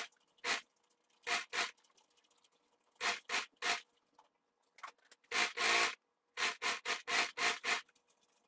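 Electric domestic sewing machine stitching in short stop-start spurts, the longest about five seconds in and a quick run of them near the end, as a seam is topstitched along the edge of a fabric border.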